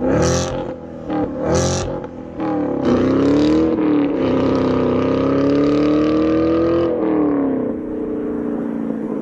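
A car engine revving, its pitch gliding up and down, with two short sharp bursts in the first two seconds and a long held rev in the middle that slowly rises and eases off.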